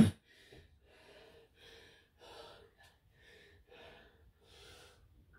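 A person breathing hard and fast, faint quick breaths about twice a second, winded after a hard indoor-cycling interval.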